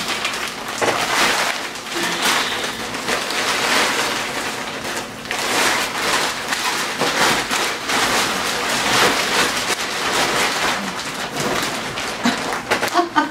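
Continuous rustling and crinkling of a large picnic blanket being unfolded and shaken out by hand; its soft top and tarp-like backing rub and crackle unevenly.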